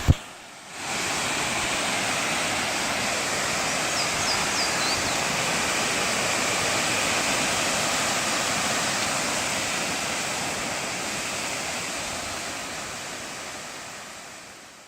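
Waterfall: a steady rushing of falling water that fades out over the last few seconds.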